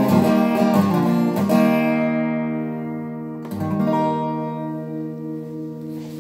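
Steel-string acoustic guitar closing a song. It is strummed for about the first two seconds, then a final chord is struck a little past halfway and left to ring and fade.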